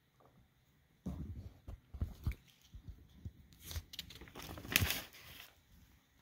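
Lined notebook paper rustling and crinkling as the pages are handled and turned over, in a string of crackles that starts about a second in and is loudest just before the end.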